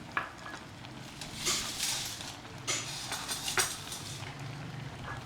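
Spoons and a ladle clinking and scraping against a hotpot and bowls while more braised fish sauce is added to the pot, with several separate sharp knocks and scrapes over a low bubbling background.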